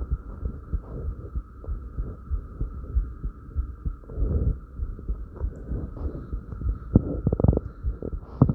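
Human heartbeat beating fast after light crunches, a rapid run of low thumps over a steady faint hum, with a soft breath about halfway through.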